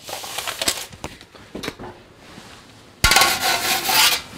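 Oven door pulled open with a sudden loud clatter about three seconds in, followed by rough scraping as a pizza is slid into the oven. Before that, light rustling and clicks of the pizza being handled.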